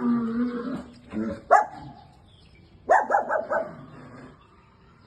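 A dog barking: one sharp bark, then a quick run of four or five barks about a second and a half later.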